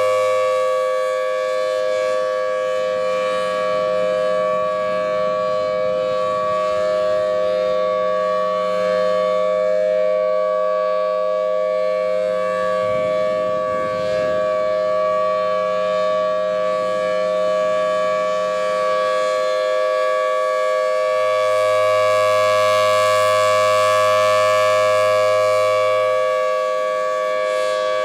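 Thunderbolt 1000T rotating outdoor warning siren sounding a steady two-tone note. It swells slowly in loudness and is loudest near the end.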